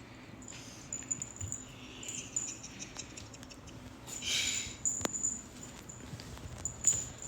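Bengal cats scrabbling in catnip: scattered small clicks and scratches, with a short rustle about four seconds in and a sharp click just after.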